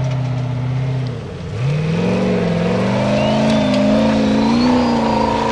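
Formula offroad buggy's engine holding steady revs, easing off briefly about a second in, then revving up sharply and staying at high revs with a wavering pitch under full throttle.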